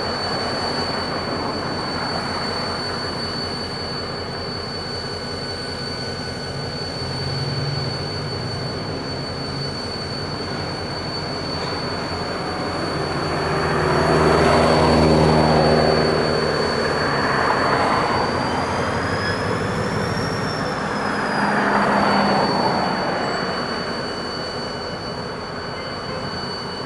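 Slow-moving diesel freight train: locomotive engine running and cars rolling on the rails, with a steady high wheel squeal that bends up in pitch and back down about two-thirds of the way through. The sound swells loudest around the middle.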